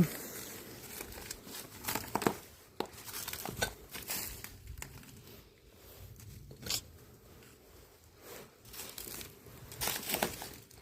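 Footsteps crunching over broken glass and debris on a floor, in irregular crackles and crunches.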